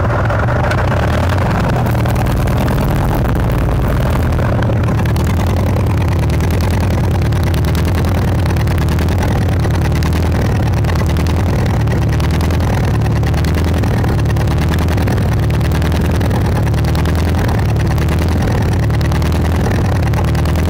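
Soméca SOM 40 tractor engine running steadily at a constant speed, a loud even low note. It has just been started after standing unused for a year and is still blowing thick exhaust smoke.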